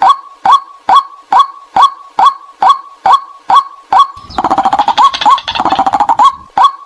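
White-breasted waterhen call played as a hunting lure: a monotonous repeated "kwak" note, a little over two calls a second. From about four seconds in, a faster, rougher chattering run takes over for about two seconds before the steady calling resumes.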